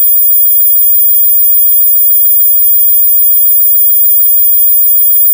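Loud, steady, high-pitched electronic test tone, the 'only kids can hear this' mosquito-style noise, played at boosted volume. It is several steady tones at once, strongest in the very high treble, with weaker lower tones beneath, all holding unchanged.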